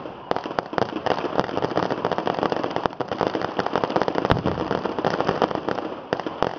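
Firecrackers going off at ground level in a dense, rapid crackle, with louder single bangs standing out here and there; the crackle thins out near the end.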